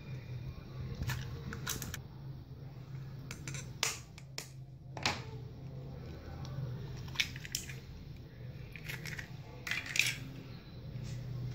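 Eggshells cracked and pulled apart by hand over a glass blender jar: a scattered series of sharp shell cracks and clicks, about nine in all.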